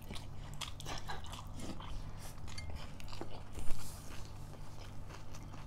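Close-up eating sounds from a mukbang of rice and vegetable dishes: chewing and biting with many small crunches and clicks. One louder sharp clack comes about two-thirds of the way in, over a low steady hum.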